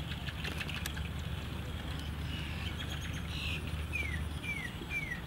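A bird calling near the end: three short chirps, each sliding down in pitch, about half a second apart, over a steady low hum that stops about four seconds in.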